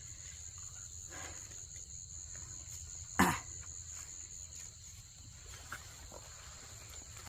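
Steady high-pitched chirring of insects, with one sharp loud thump about three seconds in.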